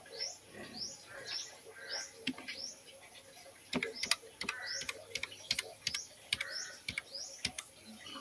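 A bird chirps over and over in short rising chirps, about two a second. Through the second half, the keys of a Flying Fox mini keyboard click one at a time as a row of digits is typed, about eight keystrokes in all.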